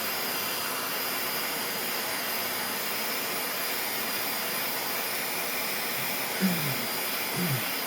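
Small hobby vacuum with a stiff-bristled nozzle running steadily with a high whine, sucking loose ballast grit out of a model locomotive's gears.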